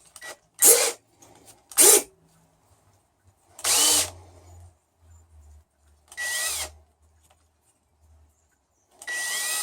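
Power drill used as a mini lathe, spinning a wooden dowel being sanded down. It runs in about six short bursts of under a second each, the motor spinning up and winding down each time.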